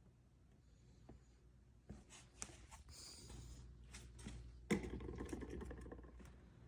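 Faint handling noises: scattered small clicks and rustles of parts and tools being handled, with one sharper knock about two-thirds of the way through followed by brief rustling.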